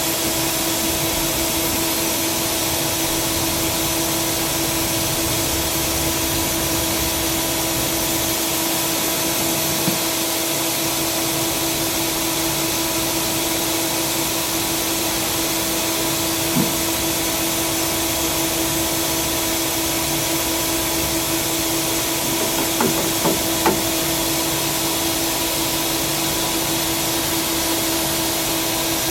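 Tsugami SS32 Swiss-type sliding-headstock CNC lathe running, a steady hum under a strong high hiss. A few short clicks come through: one about ten seconds in, another around seventeen seconds, and a quick cluster around twenty-three seconds.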